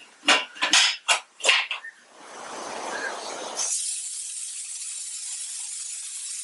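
A stovetop pressure cooker's metal lid being fitted and locked, with four sharp metal clinks in the first two seconds. Just past halfway, a steady hiss of steam escaping from the sealed cooker starts as it comes up to pressure.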